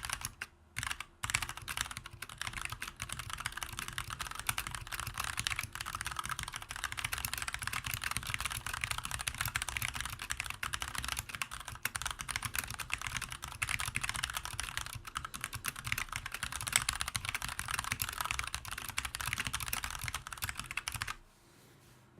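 Fast typing on a mechanical keyboard with Kailh BOX Heavy Burnt Orange tactile switches: a rapid, continuous clatter of keystrokes with two brief pauses near the start. The typing stops about a second before the end.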